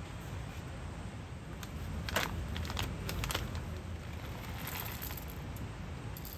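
Rustling and crinkling handling noise, with a few sharp crackles about two to three seconds in and a longer rustle near five seconds, over a steady low rumble.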